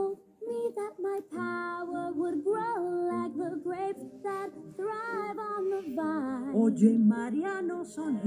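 A young girl singing a pop song along with its backing track, her voice in changing sung phrases over the music.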